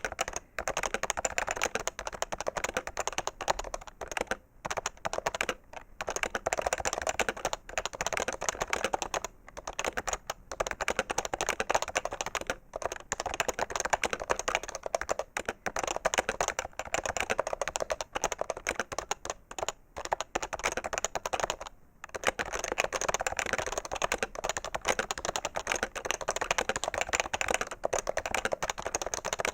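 Fast, continuous typing on an HHKB Professional 2 keyboard with Topre capacitive switches: a dense stream of key clacks, broken by a few short pauses.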